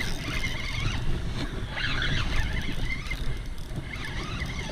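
Spinning reel being cranked to reel in a hooked fish, over a steady low rumble of wind on the microphone.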